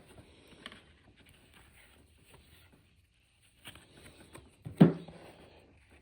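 Baseball cards being handled and sorted by hand: faint rustles and light clicks of card stock, with one sharp thump a little under five seconds in.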